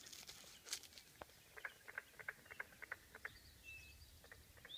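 Carpenter frogs calling faintly: a quick run of about a dozen short knocks over two seconds.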